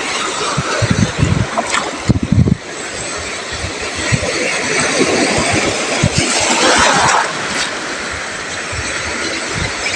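Sea surf washing against a rocky shore, with wind buffeting the microphone in low gusts; a bigger wave surges in about six seconds in.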